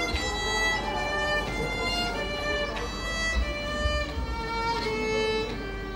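Solo violin playing a bowed melody, one held note after another.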